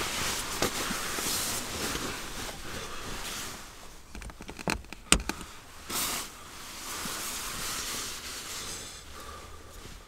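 Rustling noise that rises and falls, with a few sharp clicks about four to five seconds in, the loudest just after five seconds.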